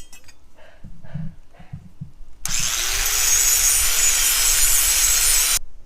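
Grinder grinding a steel lawn mower blade to sharpen its cutting edge: a loud, harsh hiss that starts about two and a half seconds in, lasts about three seconds and cuts off abruptly. A few soft handling knocks come before it.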